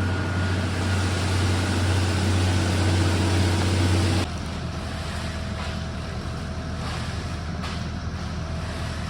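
Heavy diesel truck engines running steadily with a low drone, from the concrete pump truck and ready-mix trucks working a concrete pour. The sound drops suddenly to a quieter drone about four seconds in.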